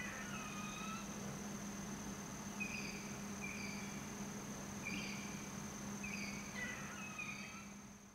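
Outdoor nature ambience: a steady, high insect drone with several short chirps scattered through it, fading out at the end.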